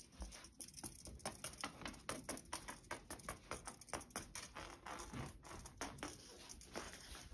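Quick, irregular scratching and tapping of a fluffy cat toy on a string being dragged across a rug and over tatami mats.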